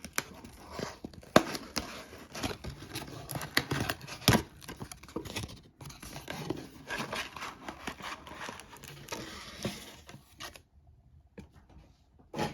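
Trading cards being handled and sorted by hand: cards sliding and flicking against each other with papery rustling and small clicks. It goes quiet for about two seconds near the end, then a single tap.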